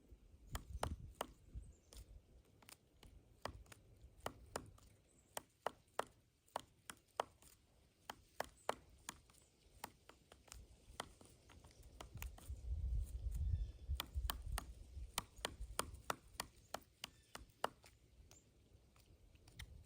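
Pileated woodpecker chiselling into a pine tree: irregular sharp knocks of its bill on wood, a few a second, with a low rumble swelling up around the middle.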